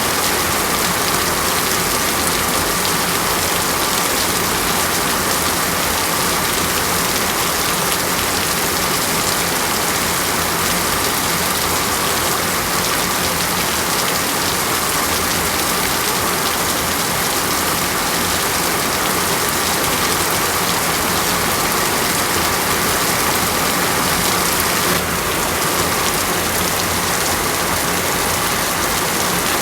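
Steady rain falling on a surface: a dense, even hiss of raindrops with no pauses, changing slightly in tone about 25 seconds in.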